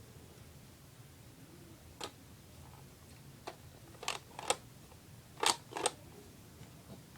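Sharp plastic clicks and clacks from handling a Lego-built SPAS-12 toy shotgun: about six separate clicks, the loudest coming in two quick pairs in the second half.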